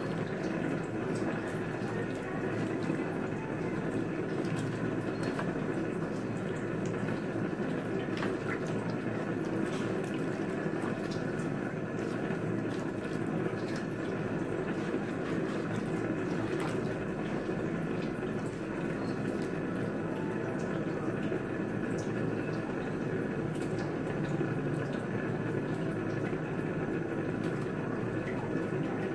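Sauce simmering in a steel wok over a gas burner: a steady bubbling hiss, with scattered light clicks as a spatula stirs the pan.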